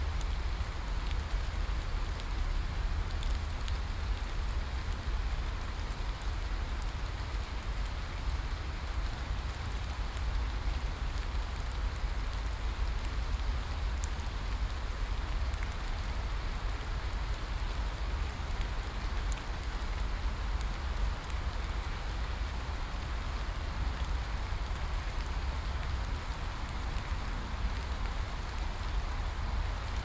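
Steady rain: an even hiss of falling water with scattered ticks of single drops over a low rumble, unchanging throughout.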